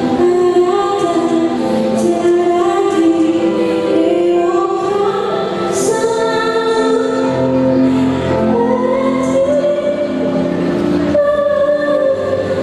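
A choir singing in several parts, holding long notes that change every second or so.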